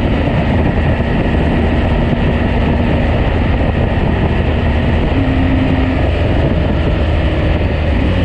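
BMW R 1250 GS Adventure Rally being ridden at a steady pace: its 1254 cc boxer-twin engine running evenly under a steady rush of wind and road noise.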